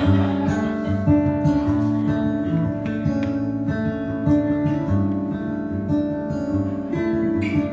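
Acoustic guitar playing a song's instrumental intro, with notes ringing out.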